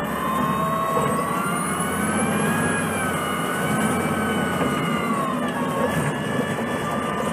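A 2006 Orion VII CNG transit bus's drivetrain, with a Cummins C Gas Plus engine and Voith DIWA D864.3 transmission, working under way. A whine of several tones climbs over the first couple of seconds, holds, then drops away about five seconds in, over the engine's low running.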